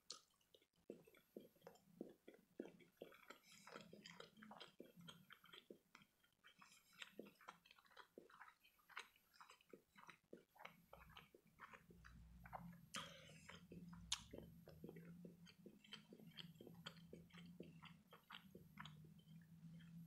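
Close-miked chewing of imitation crab sticks (surimi), a long run of small mouth clicks and smacks as the soft pieces are chewed. A low steady hum joins in from about halfway through.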